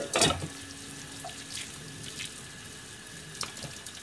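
Hands squishing and shaping raw ground-meat patty mixture over a stainless steel bowl, with a sharp knock just after the start and a few light clicks, over a steady background hiss.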